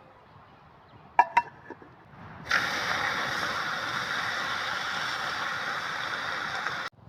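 Two quick metallic clinks about a second in, then a loud, steady sizzle of taro frying in hot oil that cuts off suddenly near the end.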